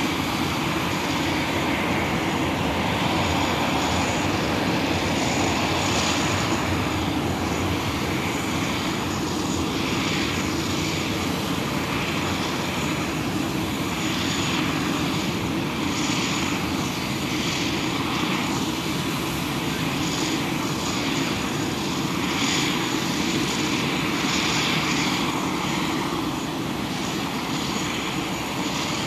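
Aircraft engine running steadily on the apron, a constant low rumble with a thin high whine over it.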